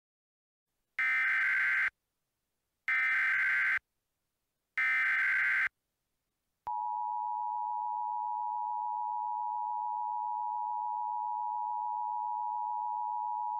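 Emergency Alert System signal: three short bursts of warbling data tones (the SAME header), then a steady two-tone attention signal that starts about halfway through. It is the broadcast signal that opens an emergency alert, here a tornado warning.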